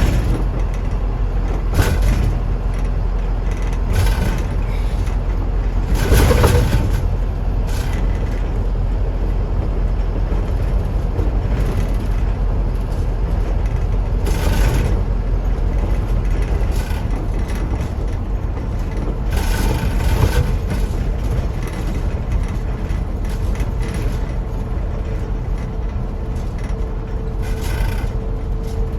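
Asa Kaigan Railway DMV (dual-mode bus/rail vehicle) running on the road in bus mode, heard from inside the cabin: a steady engine and road rumble with a handful of short clatters and bumps. A faint steady tone comes in near the end.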